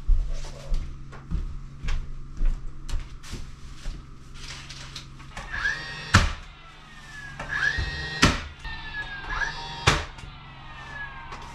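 Scattered knocks and clatter over a steady low hum. From about halfway, music with sharp struck notes about every two seconds and slowly falling tones.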